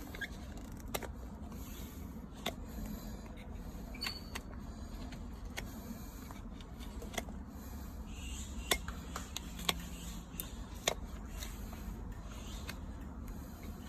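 Scattered sharp clicks and taps from a farrier's hand tools working on a horse's hoof and shoe nails, irregular and a second or more apart, over a steady low hum.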